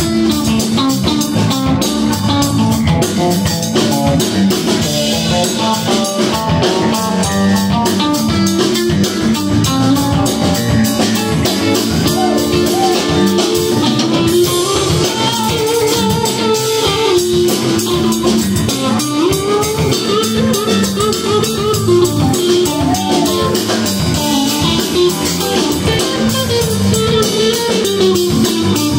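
Live rock trio playing an instrumental passage: electric guitar lead with bending, sliding notes over electric bass and a drum kit.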